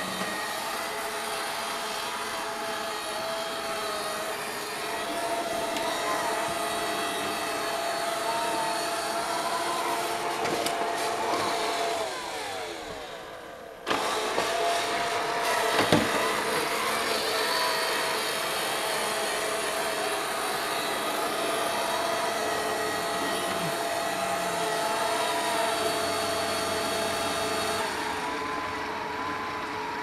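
Home Hero robot vacuum running: a steady motor hum with a whine over it. About halfway through, the sound sinks with falling pitch for a couple of seconds, then cuts back in sharply, and a single sharp knock follows soon after.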